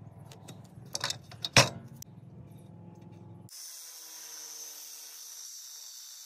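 A few light clicks and one sharp knock as a marker and square are handled on a steel bed rail; then, about three and a half seconds in, an angle grinder's cutoff wheel cutting through the steel bed rail, a steady high hiss.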